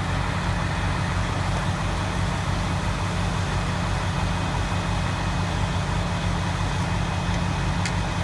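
Fire trucks' diesel engines running steadily: a low, even drone.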